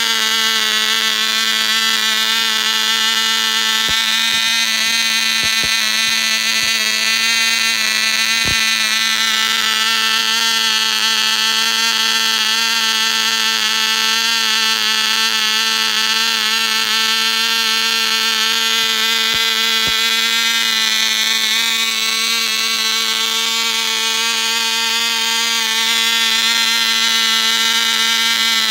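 Cox .049 model-airplane glow engine running steadily at high revs, a loud high-pitched buzz that wavers only slightly in pitch.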